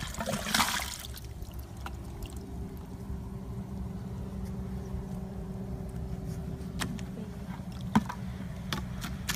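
Water and mud pouring out of a PVC pipe into a plastic bucket in a short, splashy pour during the first second. This is followed by a steady low hum, with a few light taps later on.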